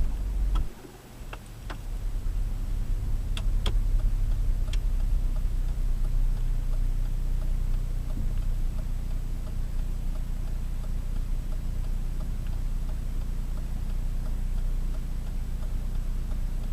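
Car heard from inside the cabin: a steady low engine and road rumble, with a few sharp clicks in the first five seconds.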